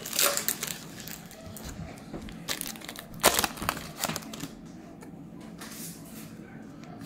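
Foil trading-card pack wrapper crinkling and tearing as it is pulled open, in several short irregular rustles, the loudest about three seconds in.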